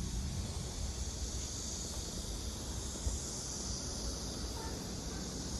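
Steady chorus of summer insects, a high continuous hiss-like buzz, over a low rumble.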